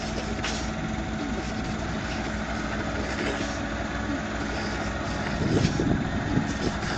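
Engine of a small paddy-field tractor running steadily as it works through flooded rice-field mud, with a louder, rougher stretch about five and a half seconds in.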